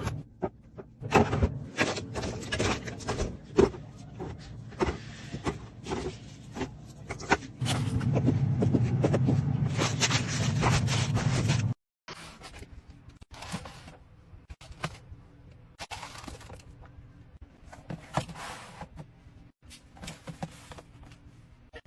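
Containers and packaging being handled and set down: scattered clicks, knocks and scrapes. A louder, steady noise runs for about four seconds in the middle and cuts off abruptly, followed by quieter, sparser clicks.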